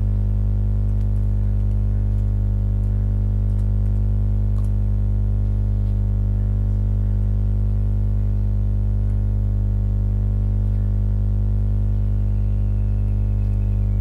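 Steady low hum with a stack of evenly spaced overtones.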